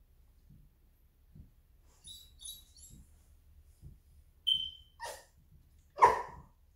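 A smoke alarm gives one short, high low-battery chirp, and a dog barks twice right after it; the second bark is the louder.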